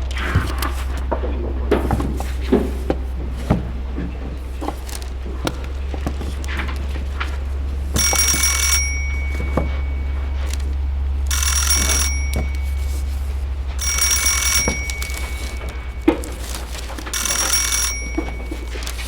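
Old rotary telephone's bell ringing four times, each ring about a second long and about three seconds apart, over a steady low hum and scattered clicks and knocks.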